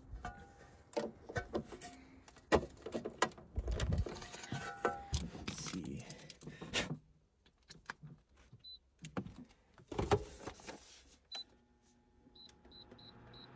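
Clicks and knocks of a plug and extension cord being handled and plugged in, then a small digital ceramic space heater beeping as its buttons are pressed to raise the setting: short high beeps, about three a second near the end, over the low hum of its fan starting.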